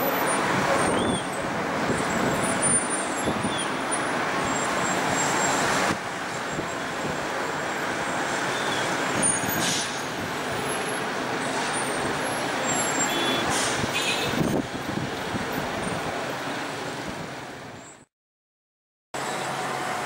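City traffic: a steady din of cars, trucks and buses, with a few brief high squeaks. It fades out near the end, there is a second of silence, and then traffic noise starts again.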